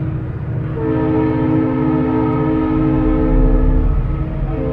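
Train horn sounding one long blast of about three seconds, then a second, shorter blast starting near the end, over a low rumble.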